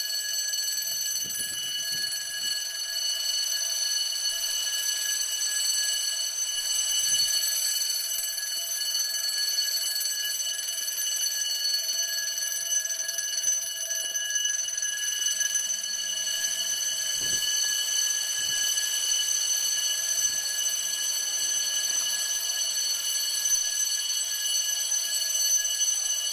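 Fire alarm ringing in one constant, unbroken high tone, with a few faint low thumps.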